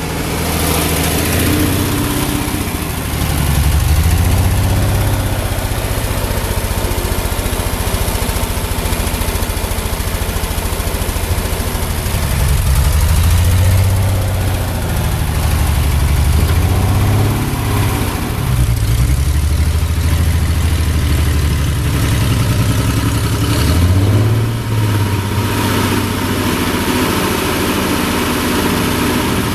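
Ford 8N tractor's four-cylinder flathead engine running, its speed rising and falling several times.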